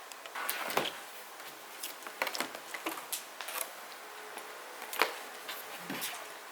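Scattered light clicks and knocks with brief rustles, as of objects being handled by hand; the sharpest knock comes about five seconds in.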